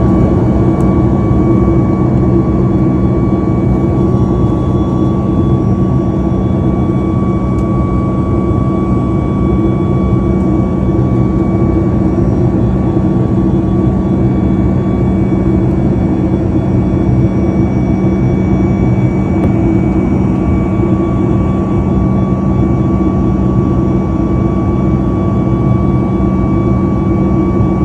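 Jet airliner engines and airflow heard inside the cabin in flight: a steady, loud rumble with a constant high whine over it.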